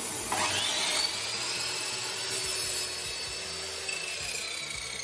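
Ryobi compound mitre saw's motor starting with a steeply rising whine about half a second in, then running at speed and starting to wind down with a slowly falling pitch near the end. Under it, a vacuum cleaner runs steadily as dust extraction, switched on through a solid state relay by the saw's blade guard release.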